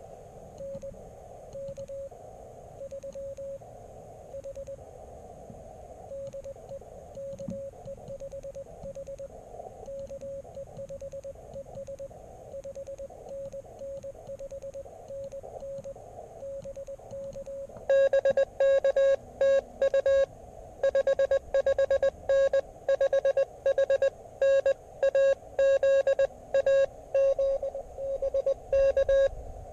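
Morse code (CW) tones from an Elecraft KX3 transceiver's speaker. A faint keyed tone sits in a narrow band of receiver hiss. About eighteen seconds in, a much louder, sharper keyed tone takes over until near the end.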